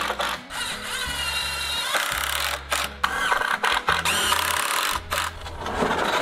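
Cordless drill driving screws into 2x4 lumber in several bursts, its motor whine rising and falling as each screw goes in.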